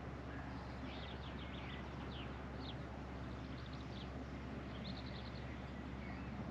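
Small birds chirping and singing: many short, high notes scattered throughout, some in quick runs of four or five, over a steady low outdoor background noise.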